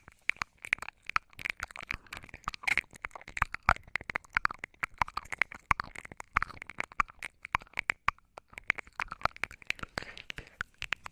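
ASMR mouth sounds close to the microphone: rapid, irregular wet clicks and smacks of lips and tongue, several a second.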